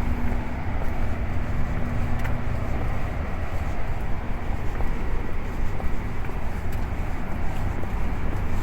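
Steady outdoor city noise, mostly road traffic, with a heavy low rumble and a few faint clicks.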